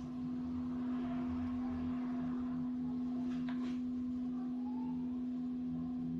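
Struck metal bowl gong ringing on with a long, steady tone.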